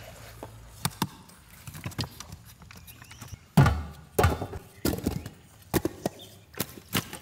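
Knife chopping watermelon against a cutting board: a series of irregular sharp knocks, the loudest about halfway through.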